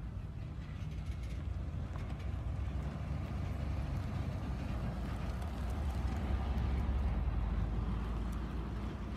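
Empty coal hopper cars of a freight train rolling by with a steady low rumble of wheels on rail, growing louder near the end, while a pickup truck drives past close by.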